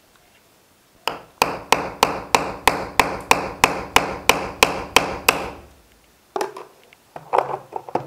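Hammer driving a nail further into a plastered wall: about fourteen quick, evenly spaced strikes, roughly three a second, starting about a second in and stopping after about five seconds, followed by a few lighter taps near the end.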